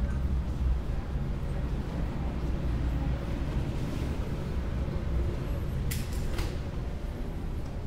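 Steady low rumble of airport building machinery, with two short sharp clicks about six seconds in.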